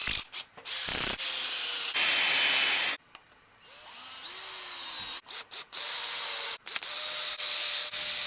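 Electric drill boring holes through a wooden lathe bed, running in several stretches with abrupt breaks; it stops about three seconds in and spins back up soon after.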